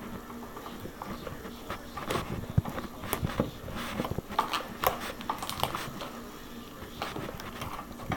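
Fluffy slime being squeezed and stretched by hand, with irregular soft clicks and small pops of trapped air.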